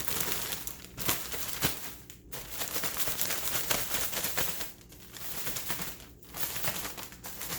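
Plastic zip-top bag crinkling as the spice mix inside is squeezed and shaken by hand to break up clumps, in spells with a few short pauses.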